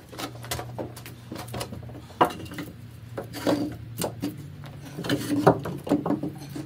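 Scattered knocks and clatter of tools and wood being handled, the sharpest a little past two seconds in and several more together near the end, over a steady low hum.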